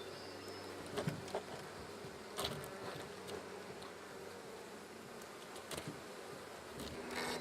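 Honeybees buzzing steadily around an open hive, with a few short knocks and scrapes as frames are handled.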